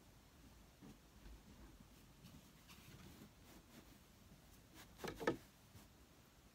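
Faint rustling of a comforter being pulled and smoothed over a bed by hand, with two short louder rustles in quick succession about five seconds in.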